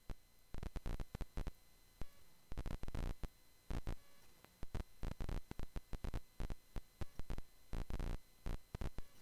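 Irregular bumps and rubbing on a handheld phone's microphone as the phone is moved around, in short clusters with brief quiet gaps.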